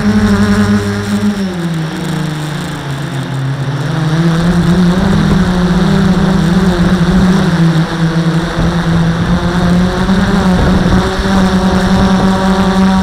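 Quadcopter's electric motors and propellers, a steady close-up buzzing hum heard from the camera on the craft. The pitch sags about two seconds in, comes back up around four seconds, and then holds steady.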